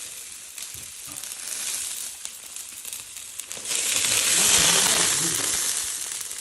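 Pickled cabbage frying in hot pork fat in a pot, a steady sizzle that swells louder just past the middle and then eases off.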